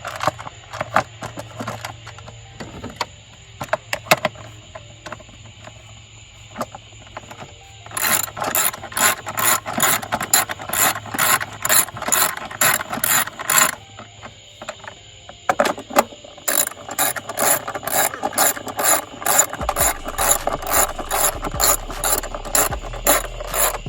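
Socket ratchet clicking in quick, even strokes as bolts are run down, with two long runs of clicks about three to four a second and a short pause between them.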